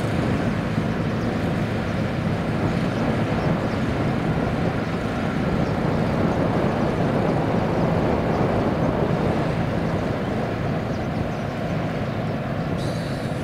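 An engine running steadily, a low even drone with no change in pace.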